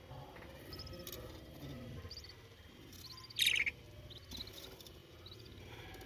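Budgerigar chicks chirping in short, faint high peeps, with one louder, longer call about three and a half seconds in.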